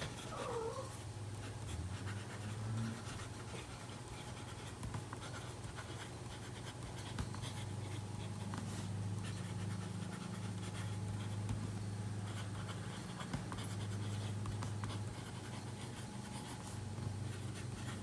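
Medium steel nib of a TWSBI Eco fountain pen scratching faintly across notebook paper in many short strokes as a line of handwriting is written, over a low steady hum.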